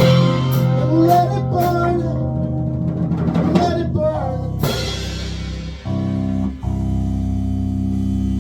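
A rock band ending a song: drum and cymbal hits over guitar, then about six seconds in the band lands on a final held chord that rings out.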